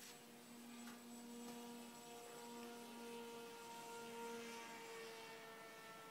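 Faint, steady hum of a distant electric RC flying wing's motor and propeller, its pitch drifting slightly up and down.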